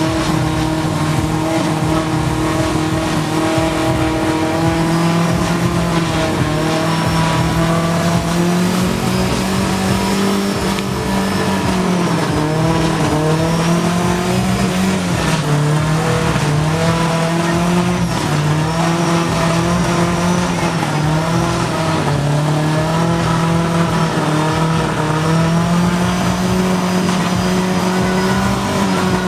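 Off-road jeep engine running hard and continuously, its pitch rising and falling slowly as the throttle is worked.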